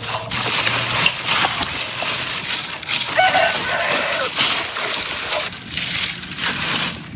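Salmon deep-frying in hot oil: a loud, dense sizzling hiss that dips briefly a few times, with a short pitched sound about three seconds in.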